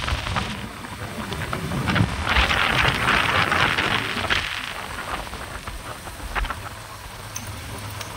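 Wind rushing and buffeting over a phone's microphone while riding along a road, a rumbling noise with a stronger hiss for a couple of seconds about two seconds in.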